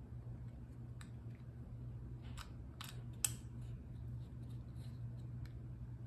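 Small plastic clicks and scrapes from a Volkswagen flip key's housing being worked by hand as its spring-loaded halves are pressed together, with a sharper click about three seconds in, over a faint steady low hum.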